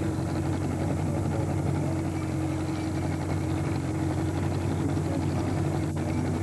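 Trolling boat's outboard motor running steadily at low speed, an even hum with no change in pitch.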